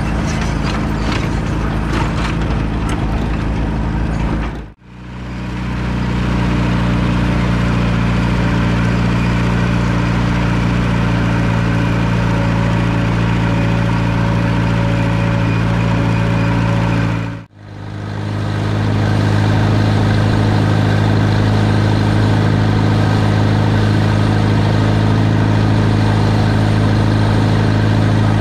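Allis-Chalmers WD45 tractor's four-cylinder engine running at a steady speed while pulling a grain drill. The sound drops out briefly twice, about five and seventeen seconds in, then carries on.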